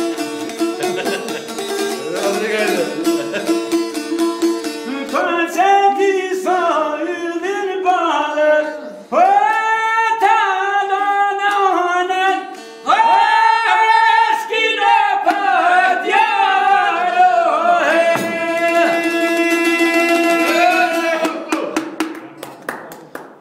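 A man sings with long held, gliding notes to a bowed string instrument, likely a one-string Albanian lahuta. The instrument plays alone at first, the voice comes in about five seconds in, and the music dies away just before the end.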